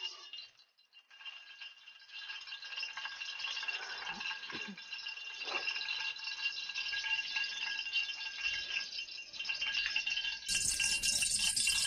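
Oil crackling and sizzling as it heats in an aluminium wok on a gas burner: a dense run of fine crackles that grows louder over the first few seconds. Background music comes in near the end.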